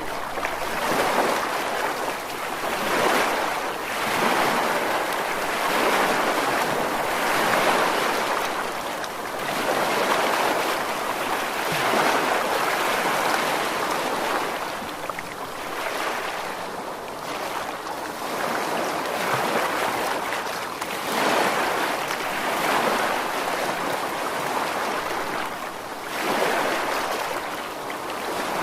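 Rushing water, a steady wash of noise that swells and falls back every few seconds.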